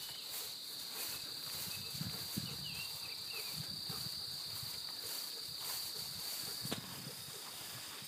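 Footsteps swishing through tall meadow grass at an even walking pace, with dogs rustling through the grass nearby. A steady high-pitched hum runs underneath, and there is a sharp click near the end.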